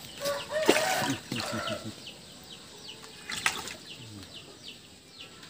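Muddy pond water splashing as a pangasius catfish thrashes while held in the hands, with a couple of sharp splashes about a second in and again past the middle. Short voices come in at the start, and small birds chirp in the background.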